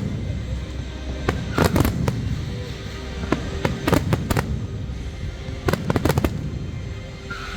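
Aerial fireworks bursting: three clusters of sharp cracks and pops, each lasting about half a second to a second and coming every couple of seconds, over a steady low rumble.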